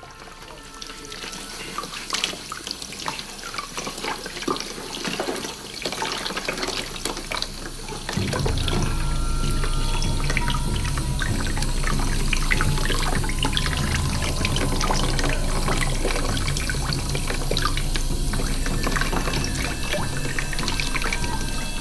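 Kitchen tap running into a stainless steel sink while hands rub and rinse a small toy under the stream, with splashing and small clicks. About eight seconds in, a low droning music score comes in under the water and holds.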